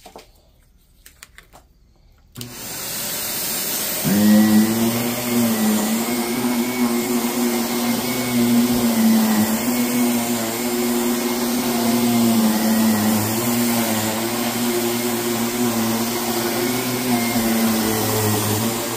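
Rotary floor machine with a shampoo tank scrubbing a rug. A steady hiss starts about two and a half seconds in, and the machine's loud, steady motor hum joins it about a second and a half later and runs on, wavering slightly in pitch.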